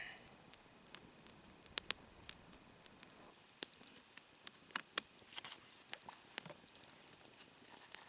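Wood campfire crackling: irregular sharp pops and clicks, the loudest pair just under two seconds in. A few short high whistles sound in the first three seconds.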